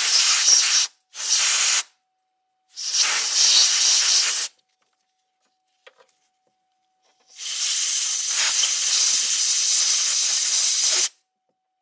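Compressed-air blow gun hissing in four blasts, the last and longest lasting about four seconds, blowing engine oil out of an engine temperature sensor's electrical connector. The oil has wicked up through the wiring harness into the connector.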